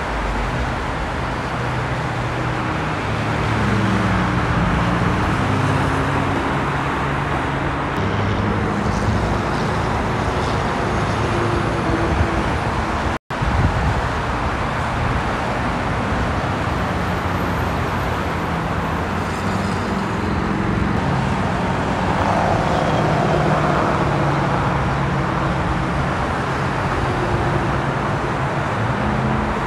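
Steady freeway traffic noise: a continuous rush of tyres and engines from many passing cars and trucks, with the low drone of heavy vehicles' engines rising and fading as they go by. The sound drops out for an instant about halfway through.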